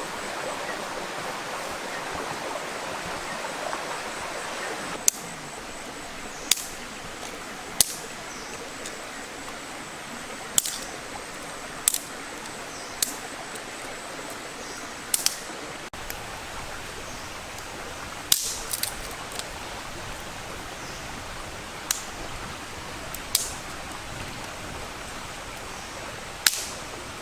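Steady rushing water, like a stream, that drops lower about five seconds in, followed by a series of sharp cracks or snaps spaced irregularly a second or two apart.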